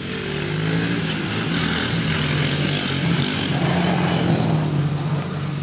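Three-wheeled ATV's small engine running as it rides past close by, growing louder over the first second and then holding steady, its pitch rising and falling a little with the throttle.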